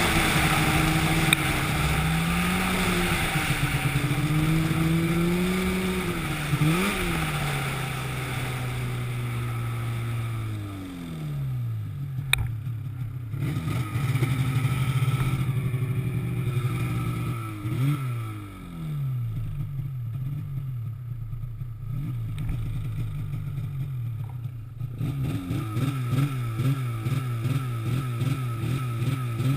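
A motor engine running with its speed rising and falling again and again, dropping away twice and picking back up, over a hiss that fades out about a third of the way through.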